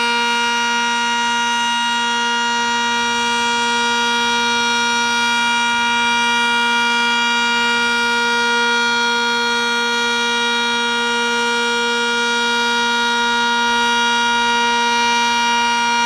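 Sentry 10V multi-horn outdoor warning siren sounding a steady alert, its pitch and loudness holding level with no rise or fall.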